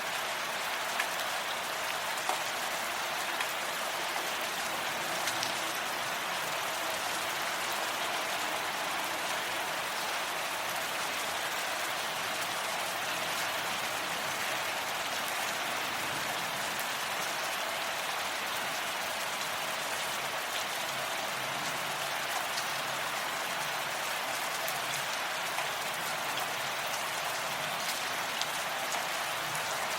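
Steady rain falling: an even, unbroken hiss with scattered faint ticks of individual drops.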